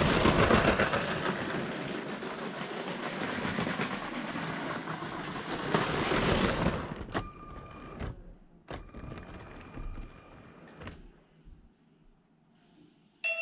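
Lego train rattling loudly along plastic track as it passes close by, its noise fading about seven seconds in. The train then runs slower with a thinner, quieter whirr broken by a few short clicks, and falls silent about eleven seconds in as it comes to a stop at the platform.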